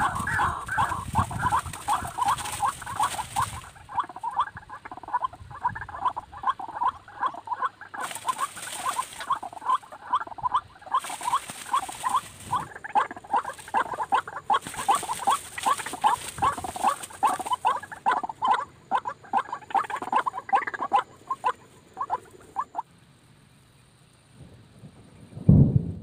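White-breasted waterhen calls: a fast run of short harsh notes, several a second, that stops about three-quarters of the way through. A loud low thump comes near the end.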